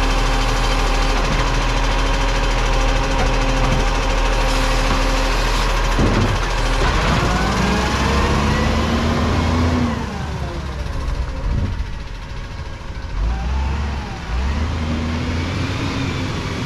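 Iveco side-loader garbage truck: the engine runs at a steady raised idle driving the hydraulic lifting arm, then revs with rising pitch as the truck pulls away. The level drops about ten seconds in, and the engine revs up again near the end.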